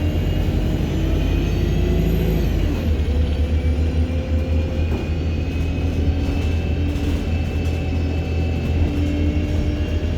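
ADL Enviro200 MMC single-deck bus under way, its diesel engine running with a high turbocharger whine and the whine of its Voith automatic gearbox over a deep engine rumble. The high whistle rises for the first couple of seconds, then falls away.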